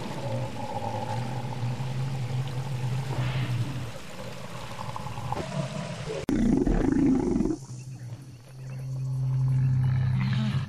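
Stegosaurus roars created as film sound effects: a long, low, drawn-out call, then a louder, harsher call about six seconds in, and another long low call near the end.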